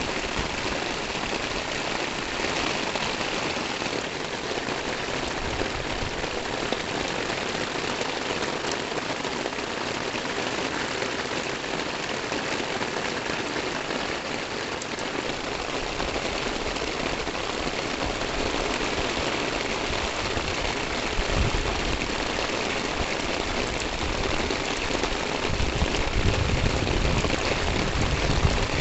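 Heavy rain pouring steadily onto a concrete rooftop terrace and the streets below, a dense, even hiss. Low rumbling swells in near the end.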